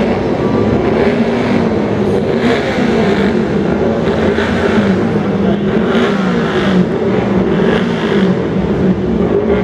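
A column of racing and classic cars driving past one after another at parade pace, their engines running together in a continuous drone, with engine notes swelling and fading as each car goes by.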